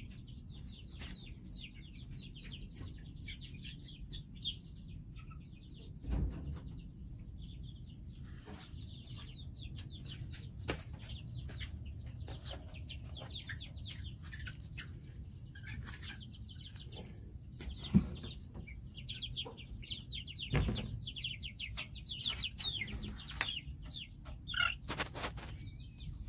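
Backyard chickens: many short, high peeps of young chicks with occasional clucks, over a steady low rumble. A few thumps break in, the loudest a little past the middle.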